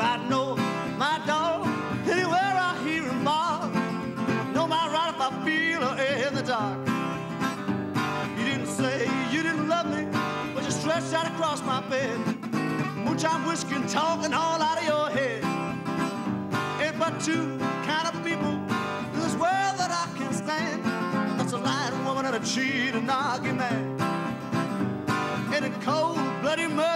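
Acoustic blues: a fingerpicked acoustic guitar with a man singing over it.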